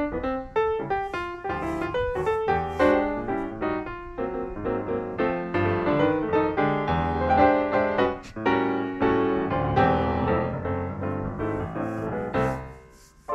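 Calm, relaxing piano music playing a flowing line of many quick notes, dropping away briefly near the end.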